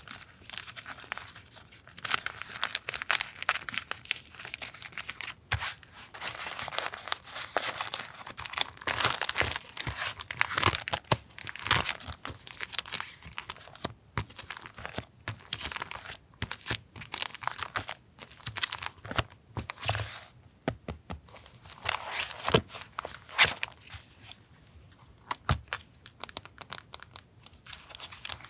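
Close-up paper sounds of washi tape cut pieces being handled and sorted: rustling, crinkling and tearing in irregular spurts with short pauses.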